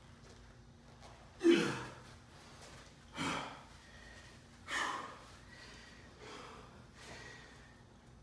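A man grunting and blowing out hard breaths with the strain of bending a steel hammer by hand: three loud forced exhalations about a second and a half apart, the first the loudest and dropping in pitch, then two fainter breaths.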